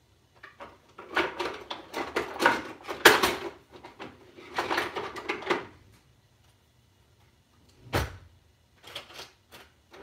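A kitchen drawer being rummaged for utensils: two spells of metal utensils clattering and rattling, then a single sharp knock about eight seconds in.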